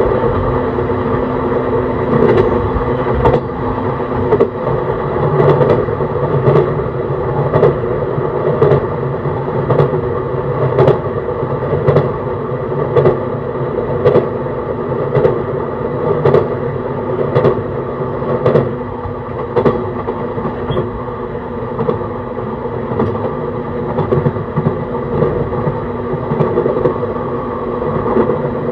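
E131 series electric train running at a steady speed, heard from inside the car. A steady drone of motor and running noise carries sharp rail-joint clicks about once a second, which grow fainter after about twenty seconds.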